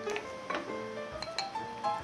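Light background music, a melody of short stepped notes, with a few sharp clicks scattered through it.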